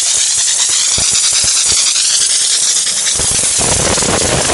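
High-pressure steam jetting from a mobile steam car washer's steam spray gun, a steady loud hiss; about three seconds in, a louder and deeper rush joins it.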